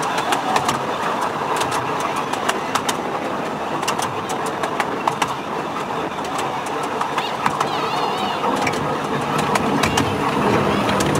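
7¼-inch gauge miniature railway train running, heard from a carriage: a steady running noise with many irregular sharp clicks and rattles of the wheels on the track. About three quarters of the way through there is a brief high, wavering tone.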